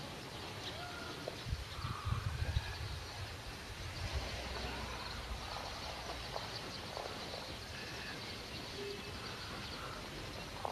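Outdoor background noise with scattered faint bird chirps, a few low bumps about two seconds in, and a low rumble just after.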